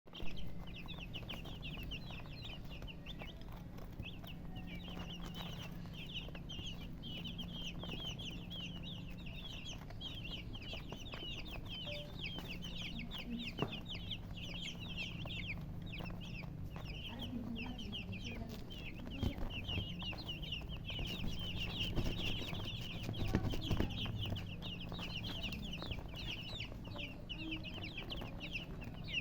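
A group of baby chickens peeping continuously, a dense overlapping stream of short, high, downward-falling chirps. A steady low hum runs underneath, with a few faint knocks in the second half.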